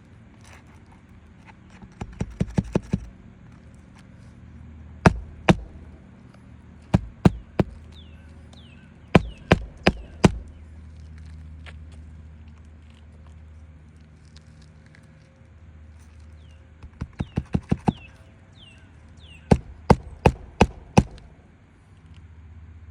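Roofing nails being hand-driven into asphalt shingles: runs of quick light taps that grow louder, then single heavy strikes, in several groups.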